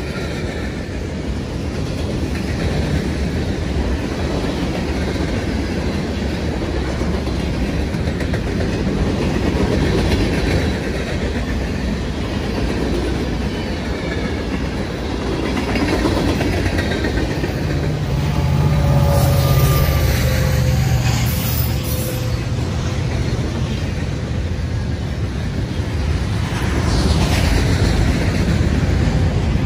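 Freight cars of a passing Norfolk Southern mixed freight train rolling by: a steady rumble of steel wheels on rail with clicking over the rail joints. The string runs from hoppers and boxcars to double-stack container well cars, and the rumble swells and eases a little as the cars go past.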